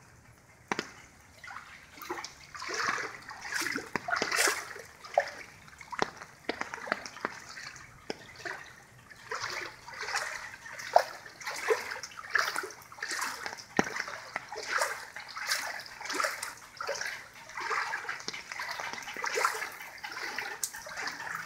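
Floodwater splashing and sloshing as a person wades through it, a splash with each stride about once a second, starting about a second in.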